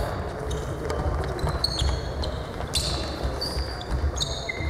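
Indoor futsal play: players' shoes squeak on the sports hall floor in a few short high squeaks, about a second apart, while the futsal ball is passed and bounced, over a low rumble of the hall.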